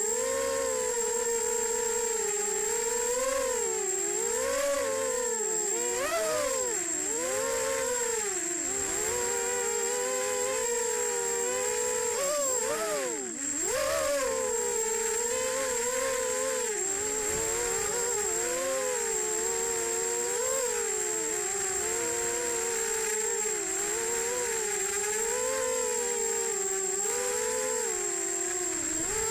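Brushless motors and propellers of an EMAX Nighthawk Pro 280 racing quadcopter whining in flight, heard from the camera on board; the pitch rises and falls constantly with the throttle and drops sharply about halfway through before climbing back. A steady high thin whine runs beneath it.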